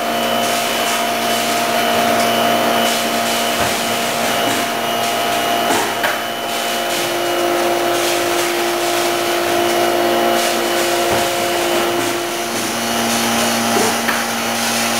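Horizontal form-fill-seal packaging machine running: a steady mechanical hum and whine over an airy hiss, with a few light knocks. One tone steps up in pitch about halfway through and drops back near the end.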